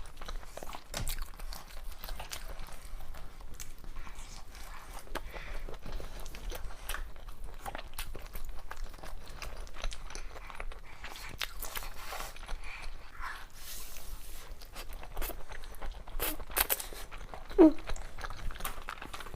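Close-miked eating: biting and chewing food, with frequent irregular crunchy, moist clicks. A short louder sound comes near the end.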